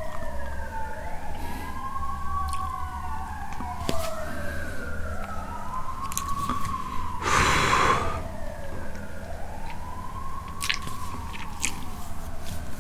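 Emergency vehicle siren wailing outside, sweeping slowly up and down about every four seconds, on its way to someone injured. A short loud rush of noise cuts across it about seven and a half seconds in.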